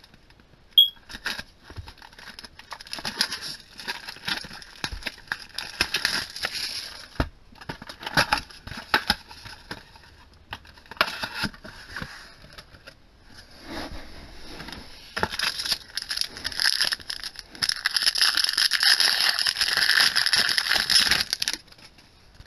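Foil booster-pack wrappers crinkling and tearing as packs of trading cards are handled and opened, with small clicks and rustles throughout and a longer, denser stretch of crinkling in the last few seconds.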